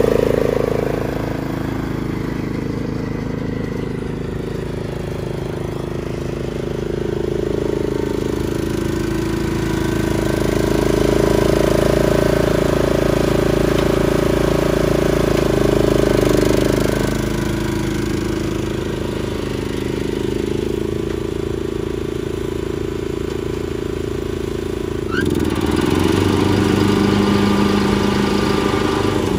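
Craftsman T1200 riding lawn mower's engine running as the mower is driven, its pitch rising and falling a little. About 25 seconds in the engine note shifts abruptly, with a brief dip.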